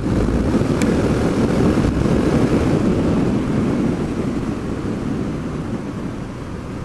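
Suzuki DR650 single-cylinder engine running at road speed, heard through heavy wind rush on a helmet-mounted microphone, easing gradually quieter in the last few seconds.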